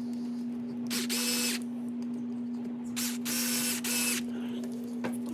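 Small cordless electric screwdriver whirring in three short bursts, driving screws into an RC buggy's chassis.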